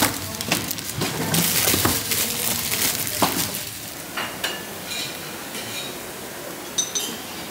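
Shopping handled and a plastic bag rustling, then, from about four seconds in, metal serving tongs and spoons clinking sharply against ceramic plates and bowls several times.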